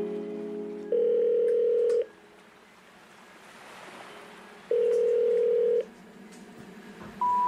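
Telephone line tones: two steady tones about a second long, a few seconds apart. Near the end come three short tones stepping up in pitch, the special information tone that precedes a 'number not in service' recording.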